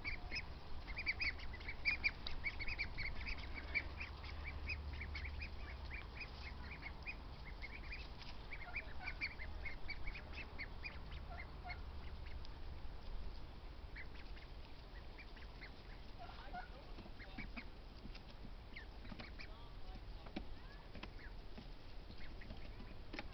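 Young Pekin and Welsh Harlequin ducks, about four weeks old, giving many short, high peeping calls in quick succession, dense for the first ten seconds or so and thinning out after that.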